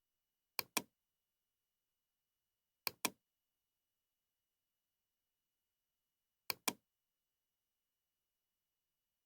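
Knocking: three pairs of quick knocks, a few seconds apart, with dead silence between them.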